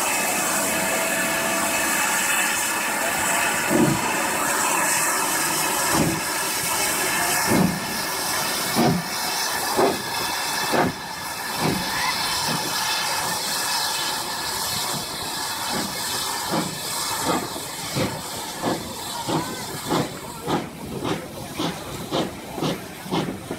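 GWR Manor class two-cylinder 4-6-0 steam locomotive pulling away from a stand: a steady hiss of steam, then exhaust beats from the chimney starting about four seconds in, slow at first and quickening to about two a second by the end.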